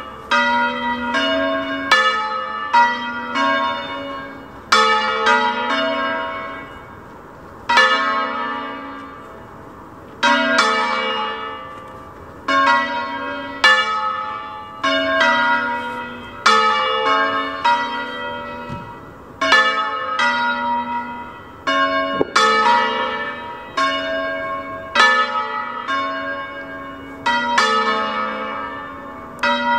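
A set of three bronze church bells tuned in A, cast by Carlo and Giuseppe Bonavilla in 1798, swinging in a full peal. Their strokes come about one to two a second in an uneven, overlapping pattern, and each stroke rings on and fades.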